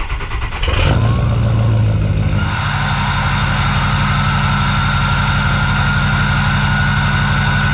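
Diesel pickup truck engine just started, running rough for about a second, then settling into a steady idle. A thin, steady high whine comes in about two and a half seconds in.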